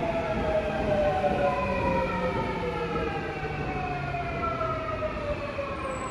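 Seoul Subway Line 4 electric train's traction motors giving a whine of several tones that glides steadily down in pitch as the train slows, over the rumble of the wheels on the rails. The whine fades a little toward the end.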